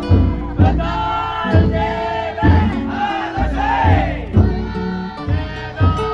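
Music with a steady beat of about one strong low thump a second, mixed with a crowd of men shouting.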